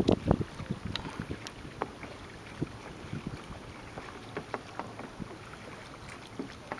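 Water splashing and dripping around a paddle craft, a cluster of louder splashes right at the start and then scattered small splashes and drips.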